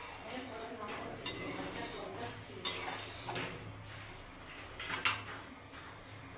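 A spoon stirring sugar syrup in a metal pan (kadai), scraping, with a few clinks against the pan, the loudest about five seconds in.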